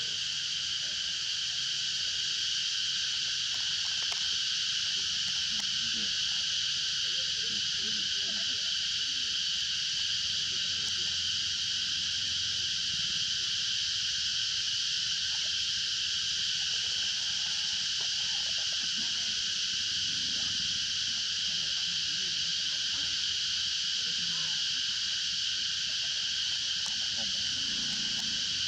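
Steady, high-pitched buzzing chorus of insects, unbroken and even in level throughout.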